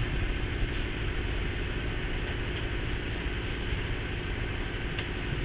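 An engine idling steadily with a constant low hum.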